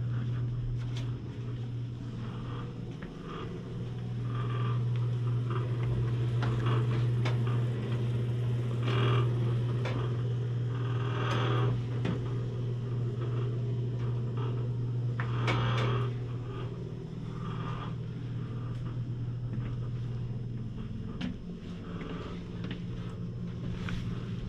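A steady low hum, with scattered light clicks and knocks and a few louder noisy stretches around the middle.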